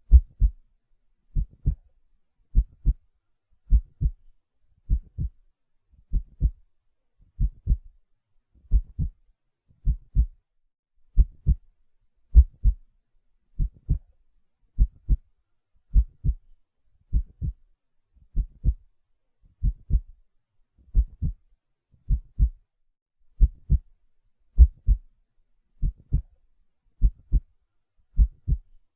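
Slow, steady heartbeat: a pair of dull thumps, lub-dub, about every 1.2 seconds, with quiet between the beats.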